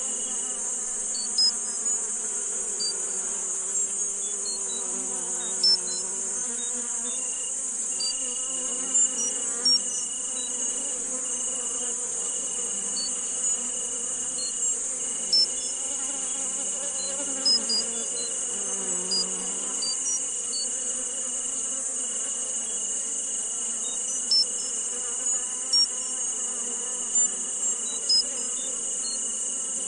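Insect chorus with a steady high hiss and a continuous high trill that drops out briefly now and then. Short, sharp chirps pop out irregularly every second or two, over a lower murmuring background.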